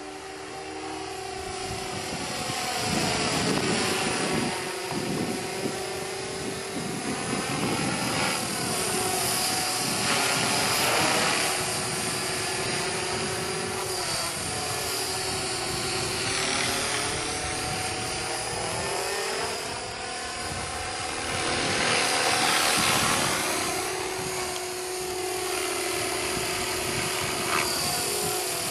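SJM430 RC model helicopter in flight: a steady rotor and motor whine that swells and fades several times as it flies about. Its blades are still out of track and it still has some vibration, as the owner notes.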